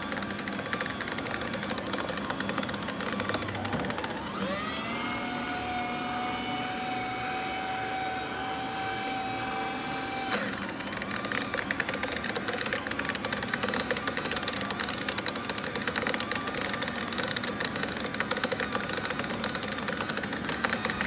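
Staples paper shredder chewing through pieces of cardboard box. About four seconds in, its motor whine rises and then holds steady. From about ten seconds in it turns to a ragged crunching full of small cracks as more cardboard is fed in.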